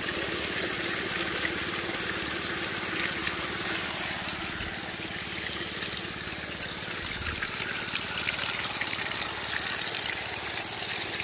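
Water pouring and splashing through a running Gold Fox gold trommel and its sluice, steady throughout, with a low machine hum under it.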